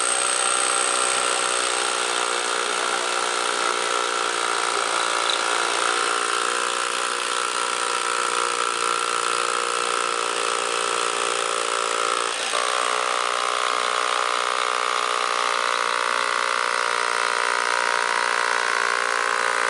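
AEG BH-22E rotary hammer drilling into a masonry block, motor and hammer action running steadily under load. About twelve seconds in the pitch dips briefly, then settles again.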